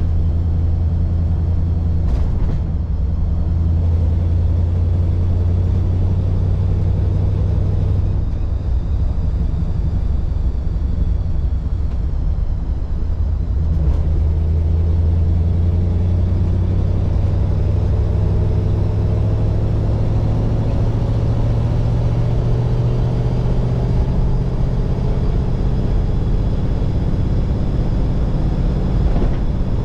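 A 1948 Mercury's 239 cubic inch flathead V8 running under way with a steady low rumble, with a brief knock about two seconds in. In the second half the engine note rises slowly as the car gathers speed.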